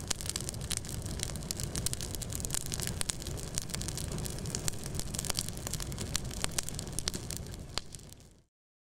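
Wood campfire crackling, with many sharp pops and snaps over a low rumble of burning. It fades out near the end.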